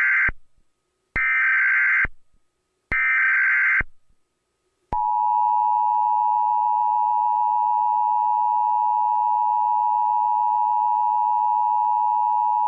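Emergency Alert System header: three bursts of warbling digital data tones, the first already under way, each lasting just under a second. About five seconds in they give way to the steady, loud two-tone EAS attention signal.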